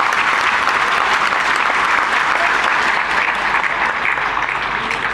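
An audience applauding: a dense, steady clapping.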